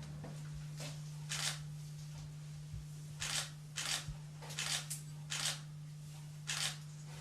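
Hairdressing scissors snipping through locks of long hair, about seven short crisp cuts at an uneven pace, with a steady low hum underneath.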